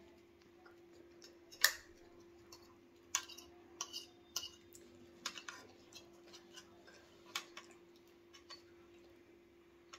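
Metal forks clinking and scraping on plates while eating, in irregular light clicks, the sharpest about one and a half seconds in. A faint steady hum runs underneath.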